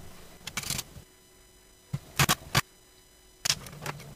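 Short clicks and knocks of the model carriage kit's body base and chassis parts being handled and set down on a cutting mat, in about four brief clusters with faint hum between.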